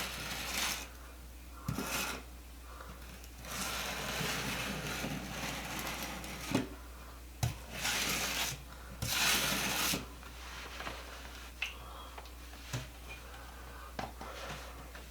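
Joint compound being scraped and spread with a metal putty knife in repeated strokes, with a few sharp taps of the metal tool.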